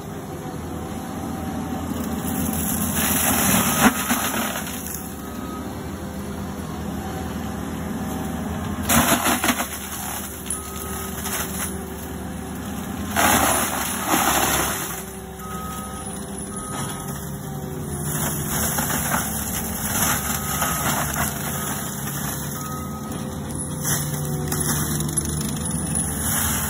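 Forestry mulcher on a compact track loader shredding a mesquite tree and brush, the diesel engine running steadily under load. There are three loud surges of grinding and chipping a few seconds apart in the first half. A back-up alarm beeps now and then as the loader reverses.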